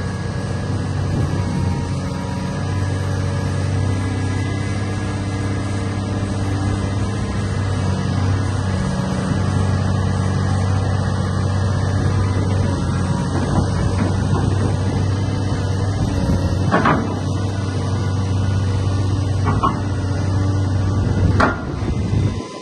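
Caterpillar 330D L track excavator's six-cylinder C9 diesel running steadily under hydraulic load as the boom and bucket move. The engine note shifts a few times, and there are three short rising tones in the last six seconds.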